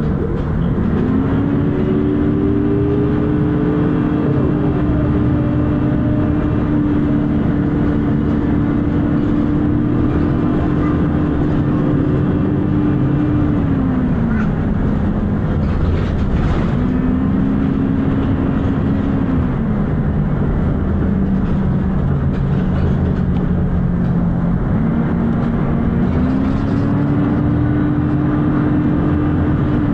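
Volvo B10BLE single-deck bus on the move, heard from inside: its engine and large cooling fan drone with plenty of thrash. The drone rises in pitch, holds for a while, then drops back, three times over.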